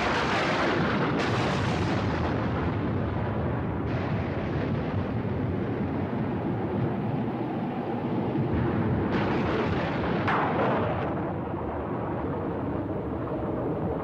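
Thunder: a sharp crack, then long rolling rumble with fresh claps about a second in, around four seconds, and twice around nine to ten seconds, easing off near the end.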